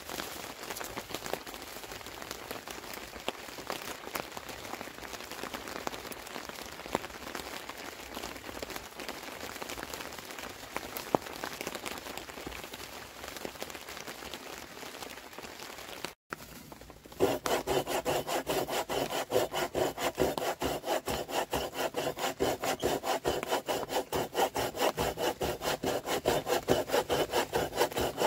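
Steady rain with scattered drips for most of the first half. After a sudden cut, a hand saw cuts through wood in quick, even back-and-forth strokes, louder than the rain.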